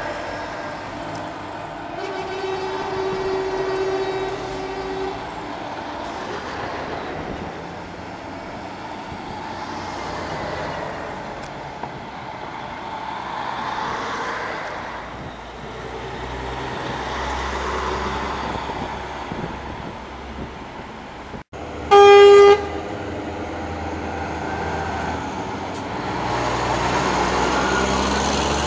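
Semi-trucks driving slowly past, their engine noise swelling and fading as each one goes by. A truck horn sounds as one steady note for about three seconds near the start, and a much louder short horn blast comes about two-thirds of the way through.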